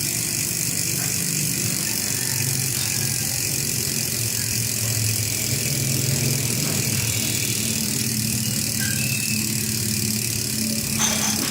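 Ragusa XM500 bicycle rear freehub freewheeling with a loud, steady ratcheting buzz from its pawls, with a sharp click near the end.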